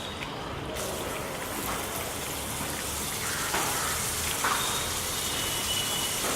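Food sizzling in hot oil in a pan, a steady hiss that grows suddenly louder and brighter just under a second in, with a couple of brief scrapes or clinks.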